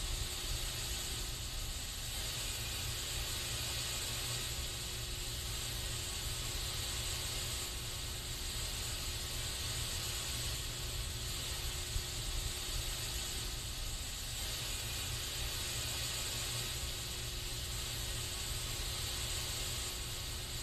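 Aerosol spray can hissing in one steady, unbroken stream, with a low rumble underneath.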